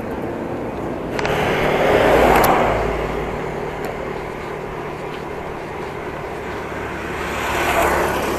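Road traffic noise: a motor vehicle swells up and fades past about two seconds in, and another near the end, over steady road noise.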